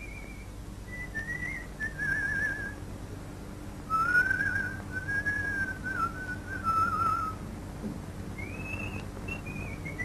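A slow melody whistled with a wavering vibrato, in several phrases with short breaks, dropping lower and louder in the middle. A steady low hum runs underneath.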